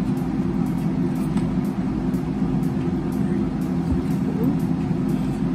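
A steady low mechanical hum with a constant tone, like a small motor running.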